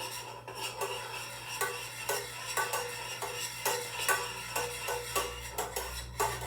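A utensil stirring a butter-and-flour roux in a pan, scraping and knocking against the metal about twice a second with a slight ring.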